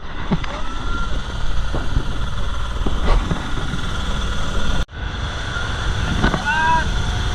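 Motorboat engine running steadily, with a brief dropout about five seconds in.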